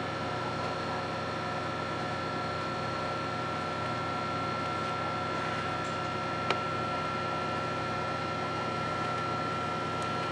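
Steady hum of a stationary 2270 series electric train's on-board equipment, heard inside the passenger car, with a constant high tone over it. One sharp click about six and a half seconds in.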